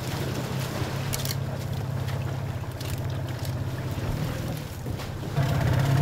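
Small boat's motor idling steadily, with a few light knocks about a second in and near the end.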